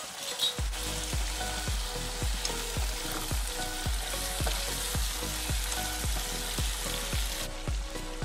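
Sliced potatoes, pork and vegetables sizzling in sauce in a frying pan as they are stirred with a spatula. Background music with a steady beat of about two thumps a second runs underneath.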